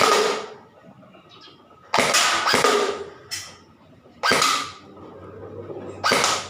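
E&C EC-305 M4 RIS airsoft electric gun firing single shots, five loud cracks one to two seconds apart, each with a short fading tail. Each pull of the trigger fires cleanly: the trigger contact, repaired with stoppers after it split and caught, no longer sticks.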